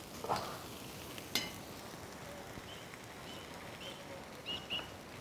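Faint sizzling of butter-basted rabbit grilling over charcoal, with a sharp click about a second and a half in. Faint short high chirps come in during the second half.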